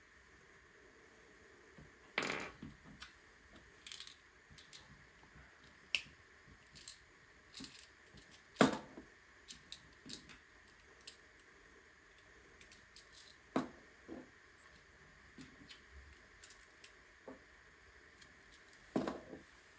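Plastic LEGO pieces being handled and pressed together: irregular sharp clicks and knocks, a few louder snaps among many light ticks, over a faint steady hiss.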